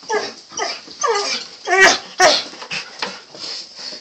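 Excited dog whining and yipping in short high calls, about five of them, the loudest about two seconds in: eager anticipation of a walk.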